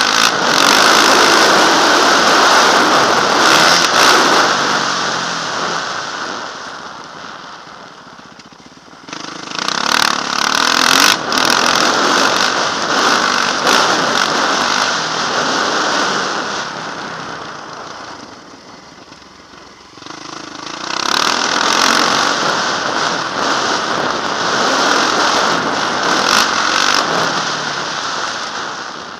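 Yamaha motocross bike's engine running hard under load down the track. It fades three times as the throttle eases and comes back suddenly louder about nine and twenty seconds in.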